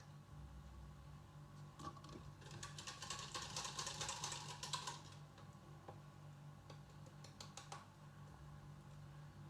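A utensil clicking rapidly against a bowl for about two and a half seconds as liquids are mixed, followed by a few separate taps.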